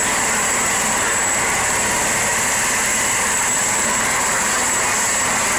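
Air ambulance helicopter running on the ground, its turbine and rotor making a steady noise with a constant high-pitched whine.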